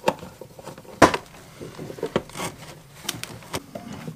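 Bottles and cans being moved about on a wooden shelf: a few sharp knocks and light clatter, the loudest knock about a second in.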